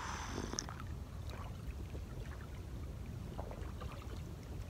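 Steady low wind rumble on the microphone, with a few faint small clicks.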